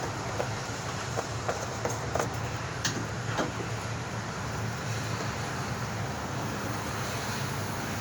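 A steady low engine hum under an even, noisy haze, with a few light knocks and clicks in the first three and a half seconds.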